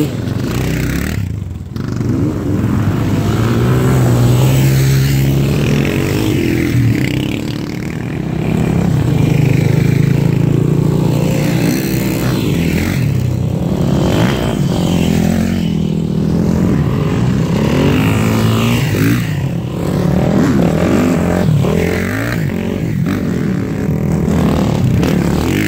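Several dirt bike engines revving and accelerating past one after another, often overlapping, their pitch climbing and dropping with each throttle change and gear shift.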